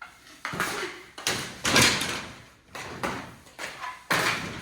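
An irregular run of about seven sharp knocks and clacks from knee hockey play: mini hockey sticks and the ball striking each other and the walls and doors around the rink. The loudest hits come around two seconds in.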